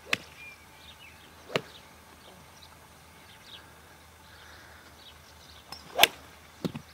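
Golf club striking a ball off a driving-range mat: one sharp crack about six seconds in, the loudest sound, with a smaller click just after it. Two fainter sharp cracks come earlier, at the start and about a second and a half later.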